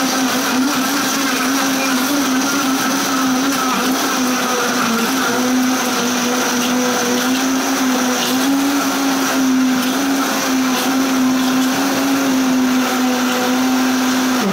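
Vitamix blender running loud and steady, blending strawberries, bananas, dates and water into a smoothie; its motor whine holds one steady pitch and cuts off at the end.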